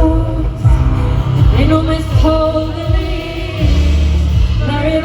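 Live rock-pop concert sound: a female lead vocal sings held, bending notes over a band with a steady kick-drum beat and bass, heard loud through the venue PA.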